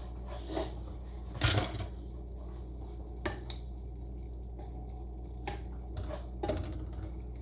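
Kitchen utensils and dishes clattering: one loud clatter about a second and a half in, then a few lighter knocks, over a steady low hum.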